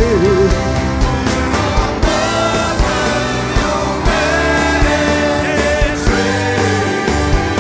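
Live band playing a rock song, with a steady drum beat, bass and guitar and a trumpet; a singer's voice wavers briefly right at the start.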